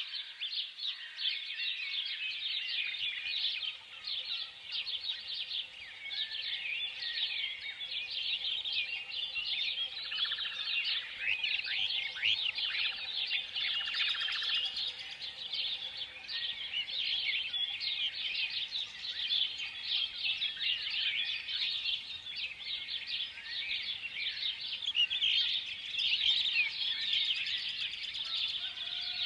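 A flock of small birds chirping, many short overlapping calls in a dense, continuous chorus.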